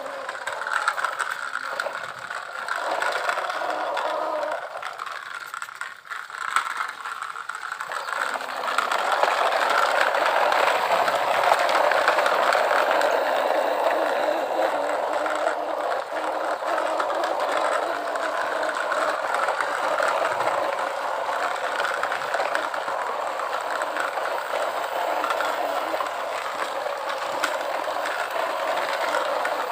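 Toy vehicles rattling and whirring: a steady gritty mechanical rattle, patchy at first and then dense and even from about eight seconds in.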